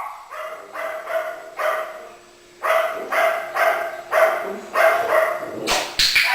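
A dog making a string of short, sharp sounds, about two a second, with a brief pause around two seconds in and a louder, sharper one near the end.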